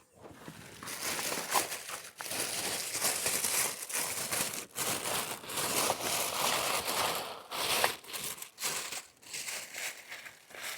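Crinkling and rustling from something being rummaged through by hand, in irregular runs broken by brief pauses: a search for keys.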